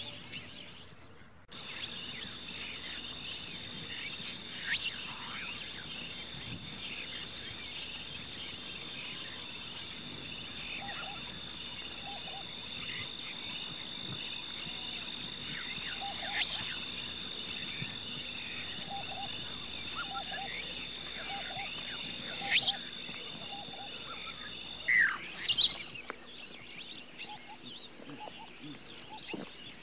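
Wildlife sounds: a high, fast-pulsing insect trill that starts abruptly about a second and a half in and cuts off shortly before the end. Short low frog croaks repeat about once a second and quick bird chirps scatter through it, with two sharp, louder chirps near the end.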